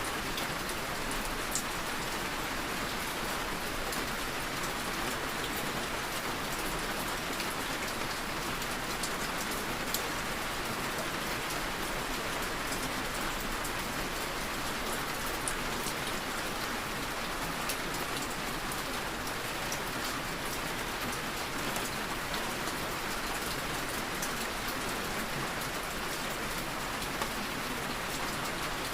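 Steady rain falling on a surface, an even hiss dotted with scattered ticks of individual drops.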